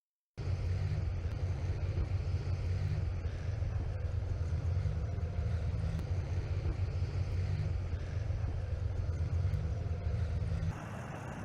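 Steady, loud low engine rumble. About ten and a half seconds in it cuts off abruptly to a quieter, hissier background.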